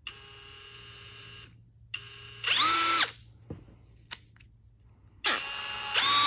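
DCK 20V brushless cordless drill motor run off the trigger: a quiet steady whine first, then two short full-speed runs, each spinning up quickly to a high whine, holding about half a second and stopping. The second run steps up from part speed to full speed.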